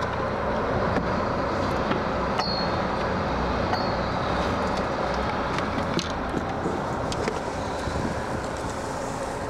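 Steady drone of a boat's engine with wind and sea noise on deck, broken by a few light clicks and knocks of handling.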